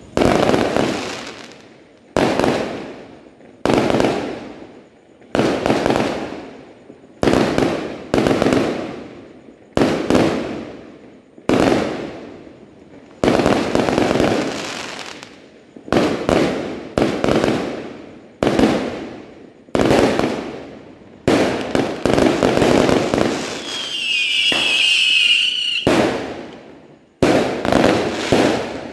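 Aerial fireworks shells bursting overhead one after another, about one every one to two seconds, each bang trailing off in a rolling echo. About two thirds of the way through, a high whistle wavers for a couple of seconds, and near the end the bangs come faster.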